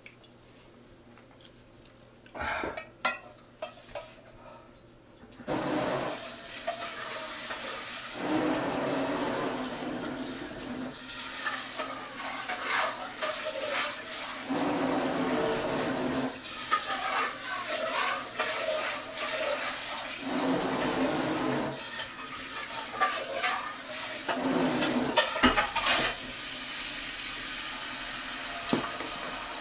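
Kitchen tap running into a sink while a pot and dishes are rinsed. It starts about five seconds in, after a few soft knocks, and runs on with its sound changing as things are moved under the stream, with sharp clinks of dishes near the end.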